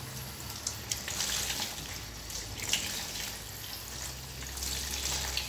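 Water splashing in a stainless-steel sink as green herbs are rinsed by hand in a plastic colander. The splashing comes in uneven swells with a few light knocks of the colander.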